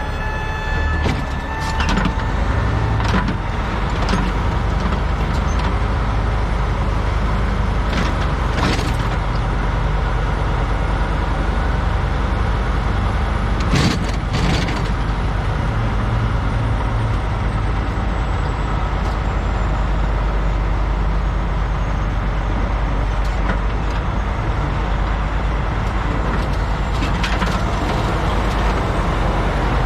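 A heavy diesel vehicle's engine running steadily, with several short sharp hissing or clanking noises over it.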